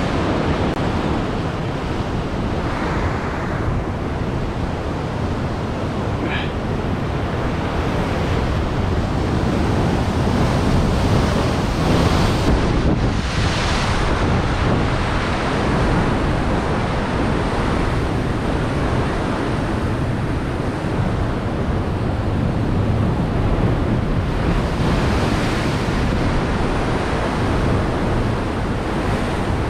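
Sea surf washing against the shore, with wind rumbling on the microphone. The surf swells louder a few times, most strongly about twelve seconds in and again about twenty-five seconds in.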